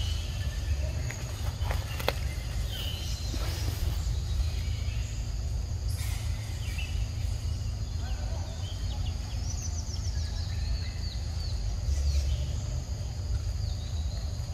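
Forest ambience: a steady high insect drone with scattered short chirps, over a low rumble.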